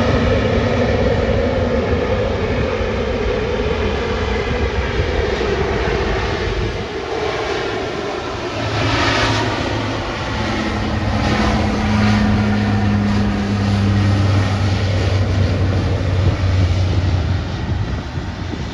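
Bombardier Dash 8 Q400 turboprop running at takeoff power: its Pratt & Whitney PW150A engines and propellers make a loud, steady drone with a low hum. The pitch slides down slightly over the first several seconds.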